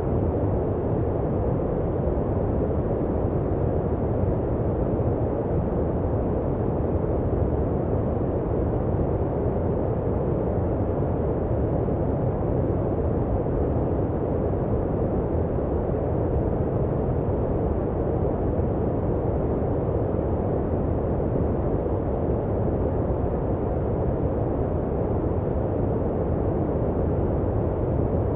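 Steady noise track made for sleep, a deep, even rush with most of its weight low and little hiss up top. It holds constant, with no changes or events.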